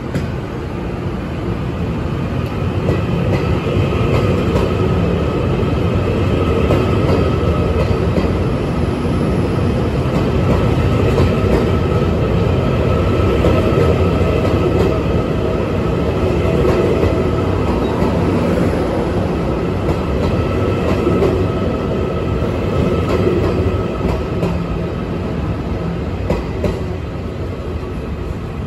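Puyuma Express TEMU2000 electric multiple unit departing the station and running past at low speed: the rumble of its wheels on the rails with a steady whine, growing louder over the first few seconds.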